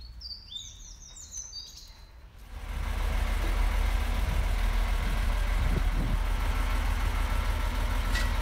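Small songbirds chirping in quick high phrases; about two and a half seconds in, a Liebherr mobile crane's diesel engine takes over, idling with a steady low running sound.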